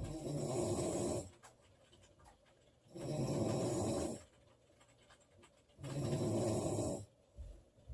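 A woman snoring in her sleep: three snores, each lasting just over a second, coming about every three seconds with quiet breathing pauses in between.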